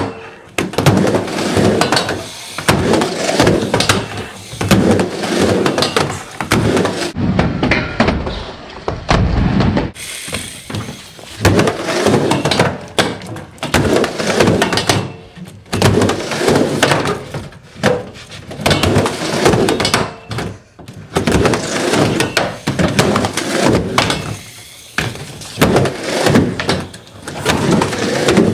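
Skateboard riding back and forth on a wooden mini ramp in a small concrete room: the wheels rumble across the plywood in swells every second or two, broken by sharp clacks and slaps as the trucks hit the coping and the board lands.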